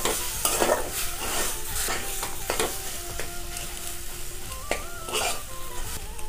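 Metal spatula scraping and stirring a thick mash of grated pointed gourd and boiled potato around a metal kadai, in repeated irregular strokes, while the mixture sizzles in the hot oil. This is the dry sauté (kashano) that drives the moisture out of the filling.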